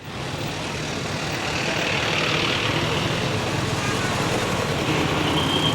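Road traffic with a vehicle engine running steadily close by. A thin, steady high tone comes in near the end.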